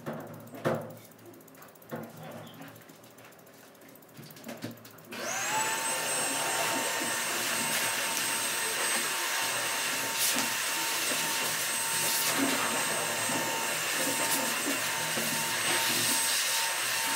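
An electric blower motor, of the kind in a pet dryer or vacuum, switches on about five seconds in: its whine rises as it spins up, then it runs steadily. Before it, a few sharp snips of grooming scissors.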